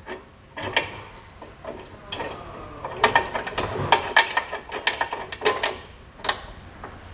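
Irregular light metallic clicks and clinks of a steel bolt and lock washer being turned by hand against a steel base plate, threading the bolt onto a handle nut inside the frame.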